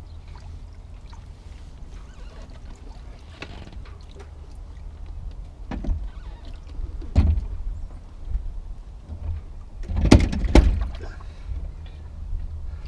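A few dull knocks and thuds, the loudest two close together about ten seconds in, over a low steady rumble.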